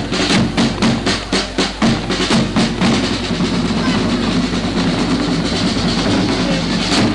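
Parade drums beating a steady march rhythm that thickens into a continuous drum roll about three seconds in.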